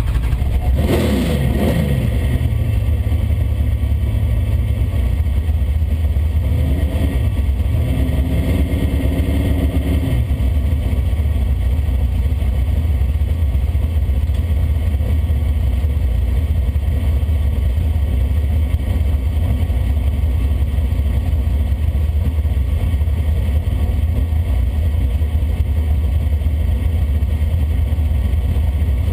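The 1965 Plymouth Belvedere drag car's engine heard from inside the cabin: the revs fall away over the first couple of seconds into a low, steady rumble at low road speed. About seven seconds in the revs rise briefly, hold, and drop back near ten seconds.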